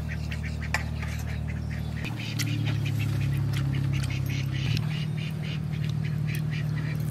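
Rapid repeated animal calls, several a second, over a steady low hum that shifts in pitch twice.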